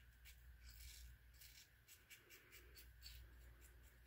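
Short, quick strokes of a King C Gillette double-edge safety razor with an Astra blade, scraping lathered stubble on the upper lip. The strokes are faint, several a second.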